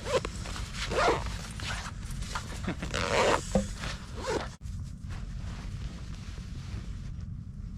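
A dog barking and yipping in excited play: several short calls in the first four seconds or so, then they stop, leaving a steady low rumble.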